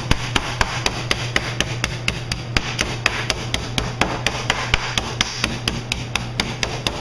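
Meat pounder beating a chicken breast flat between sheets of wax paper on a wooden butcher block: a steady run of rapid blows, several a second.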